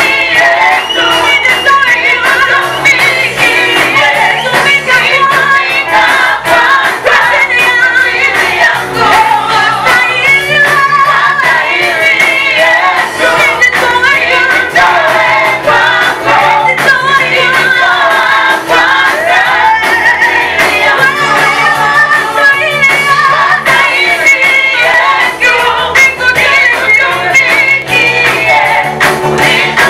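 A vocal group sings a gospel praise song in Swahili, female voices prominent, over a bass line and a steady beat.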